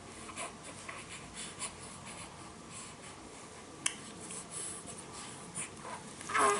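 Soft scratching and rustling with small ticks, a sharp click about four seconds in, and near the end a short, louder sneeze with a falling squeaky edge.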